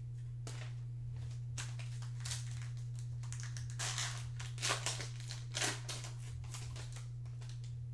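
Plastic wrapper of a 2020 Prizm football card pack being torn open and crinkled by hand, a string of irregular crackling rustles that is loudest a little past halfway, over a steady low hum.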